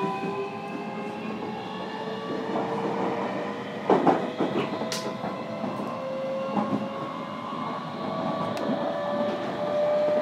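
JR Kyushu 305 series electric train heard from inside a motor car: the traction motors give a whine of several tones rising slowly in pitch as the train gathers speed, over the rumble of the wheels on the rails. About four seconds in the wheels knock once over a rail joint.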